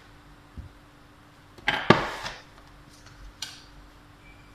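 A metal spoon knocking against a bowl and cooking pot as ginger-garlic paste is scraped in: one sharp clatter about two seconds in, then a lighter click.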